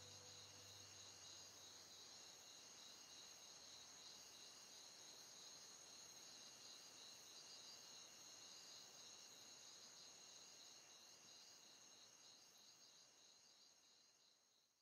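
Faint, steady, high-pitched insect chirring that fades away near the end. The last low notes of music die out in the first second or so.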